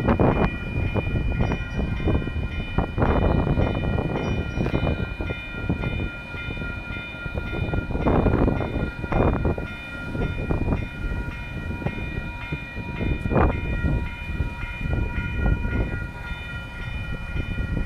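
Bombardier Flexity Freedom light rail vehicles rumbling over a level crossing on their rails, with the crossing's warning bell ringing steadily over them.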